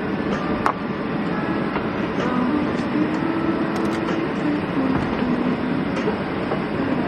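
Steady, loud rush of a mountain valley stream, with faint voices underneath and a clink of dishes about a second in.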